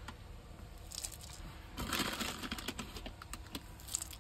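Light, irregular clicking and rustling of namkeen snack mix being stirred into poha, denser for a moment about two seconds in.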